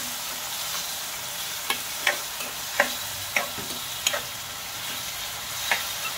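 Chopped tomatoes with onion and garlic sizzling in hot oil in a nonstick kadhai, with a steady hiss. A spatula scrapes and stirs against the pan in short, irregular strokes, about seven in all.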